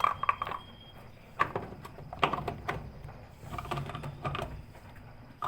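Irregular plastic clicks and knocks as the washing machine's drain filter is handled and refitted.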